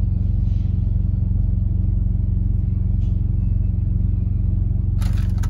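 Semi-truck diesel engine idling steadily, heard from inside the cab, with an even low pulsing throb.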